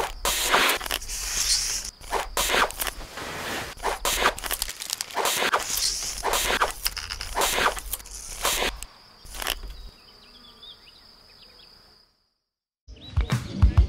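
A rapid series of short rustling, scraping noises, a few a second, over a faint steady high whine. They thin out after about ten seconds and cut off to a moment of silence shortly before the end.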